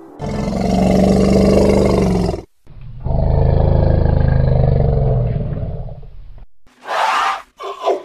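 Elephant giving two long, low, rough roars, the second longer, then sharper high-pitched calls near the end.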